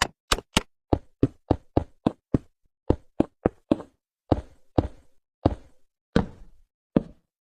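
A run of sharp knocks, about three to four a second at first, then slowing and spacing out in the second half, the later ones with a short ringing tail.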